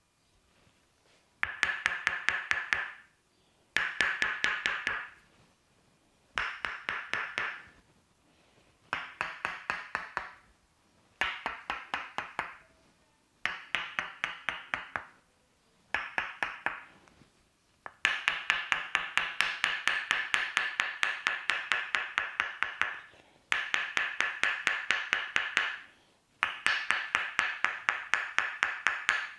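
Tok sen massage: a wooden mallet tapping a wooden wedge in quick runs of several strikes a second, each strike ringing briefly. The runs last one to two seconds with short pauses between them, and one longer run of about five seconds comes past the middle.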